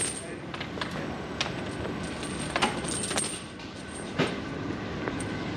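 City street ambience: a steady background hum with a handful of sharp, irregular clicks and knocks.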